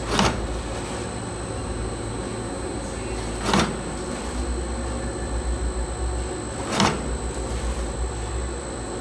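Automatic putty extruding and cutting machine running with a steady low hum, its cutter striking three times about three seconds apart as it chops the extruded strip into blocks.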